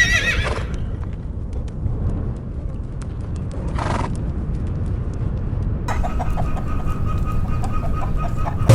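A horse whinnies briefly at the very start, its call wavering and falling off within about half a second. After that there is a steady low rumble, with a faint thin tone and light ticking over the last three seconds.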